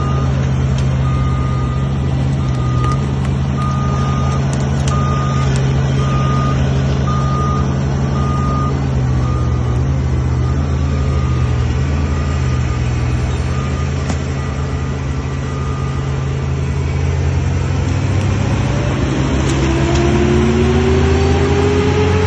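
A work truck's engine running while its reversing alarm beeps about once a second. The beeping fades out, and near the end the engine revs up with a rising pitch.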